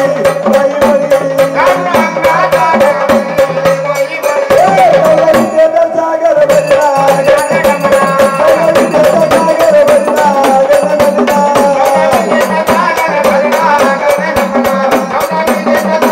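Marathi devotional folk music in the gondhal style: a sustained, wavering melodic line over fast, steady percussion, which thins out briefly about five seconds in.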